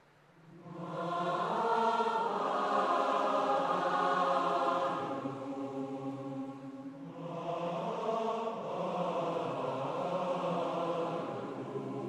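Massed choir singing long, held chords, entering softly about a second in and swelling; the sound thins out briefly around the middle, then a second phrase begins.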